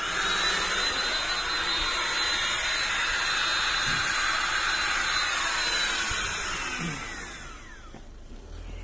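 A modified Makita DCL280F 18 V cordless vacuum cleaner, running as a blower for an HVLP paint spray gun, runs with a steady rush of air and a high motor whine. About six seconds in it is switched off, and the whine falls away over about two seconds.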